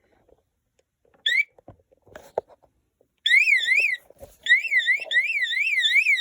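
Electronic siren warbling quickly up and down in pitch, about four swings a second. It sounds as a short chirp about a second in, then starts for real about three seconds in, with a brief break. A few light knocks come just before it.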